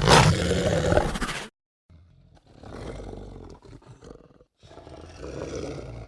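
Werewolf roar sound effect from the film Van Helsing. A loud roar cuts off about a second and a half in, and after a short gap two quieter, longer creature vocalizations follow.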